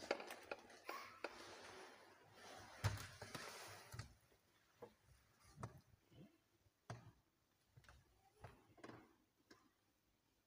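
Faint rustling with a few sharp clicks for the first four seconds, then scattered soft knocks and taps in a quiet small room.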